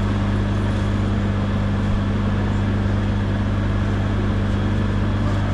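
Steady low hum of running machinery, unchanging throughout.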